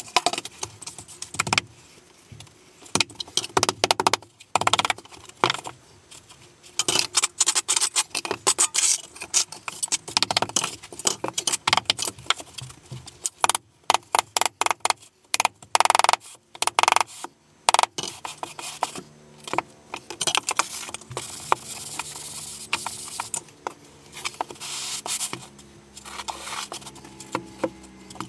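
Steel trowels and a level scraping across and tapping on packed deck mud (sand-and-cement shower-floor bed), heard as a string of short scrapes and clicks, with metal tools clinking.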